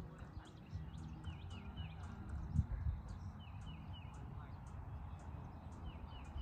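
An animal outdoors calling in quick groups of three short falling chirps, over a steady low rumble of outdoor noise and handling with one knock about halfway through.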